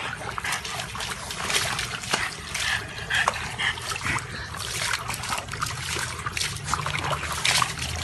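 Water splashing and sloshing in a plastic tub as a small dog sitting in it paws at the water, with many short splashes throughout.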